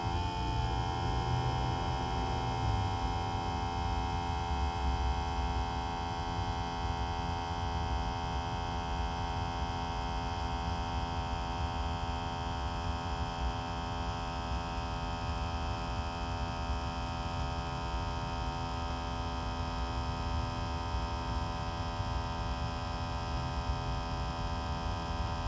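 Small electric fuel pump running steadily on a 2S battery, a continuous even hum made of several steady tones, pumping fuel into a tank at the slower 2S rate.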